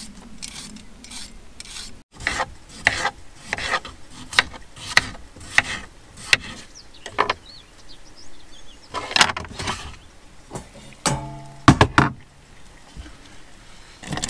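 Hand potato peeler scraping skin off potatoes in repeated short rasping strokes, with a knife cutting potato on a wooden chopping board. A short metallic clank with a brief ringing tone comes about eleven seconds in.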